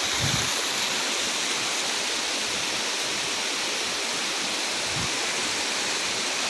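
Steady rushing of a mid-sized river flowing.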